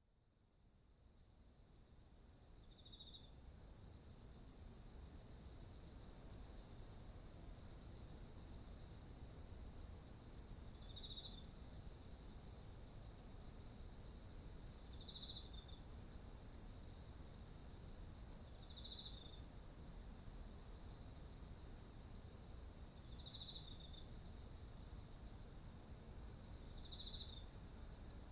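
A chorus of autumn insects calling: a continuous very high trill, a lower pulsed trill in phrases of about two seconds with short breaks, and a brief chirp every four seconds or so. It fades in over the first few seconds.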